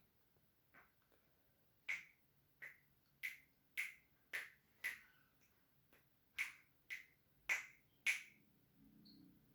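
Pet bird giving a series of short, sharp chirps, about ten in two quick runs with a brief pause between.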